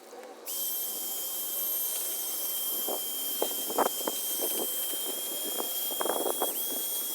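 Power drill spinning an 800-grit sanding disc against a plastic headlight lens: a steady high whine over a hiss, with scraping crackles where the disc bites.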